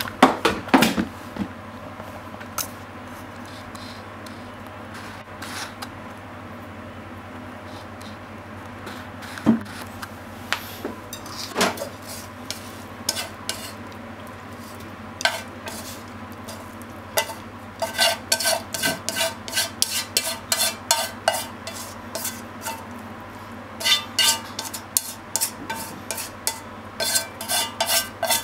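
A utensil scraping and tapping against a frying pan as a stir-fry of sausage, onion and egg is pushed out into a ceramic bowl. There are scattered clinks at first, then from about 18 seconds in a rapid run of quick scraping taps, with a short break near 23 seconds. A steady low hum runs underneath.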